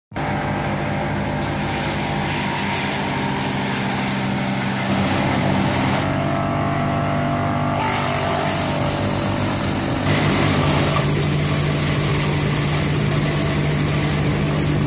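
The diesel engine of a PDU 260 D brush chipper running steadily under load, with the broad hiss and rattle of branches being chipped. The sound changes abruptly about five seconds and again about ten seconds in.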